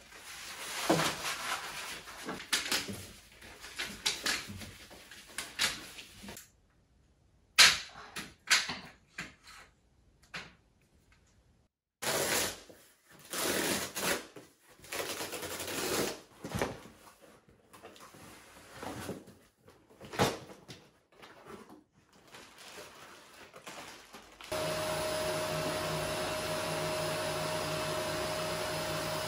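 Clatter and rustling of fabric vertical blind slats being pulled down, then scraping and tearing of a long cardboard box being opened. Near the end a canister vacuum cleaner starts and runs steadily.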